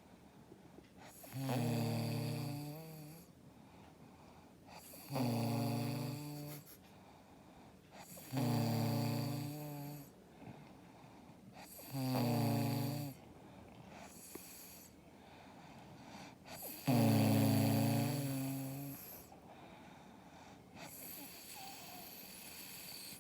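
Snoring: five long, pitched snores, each about a second and a half, coming every three to four seconds, the last one the loudest and longest, then a few seconds of quieter breathing.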